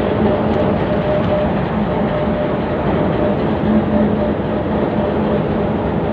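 HBU 20 diesel-electric locomotive's engine running while the locomotive stands still, heard right beside its body: a loud, steady drone with a low hum and a fainter higher tone.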